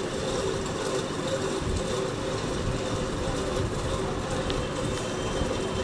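A steady mechanical hum with a low rumble beneath it, even in level throughout.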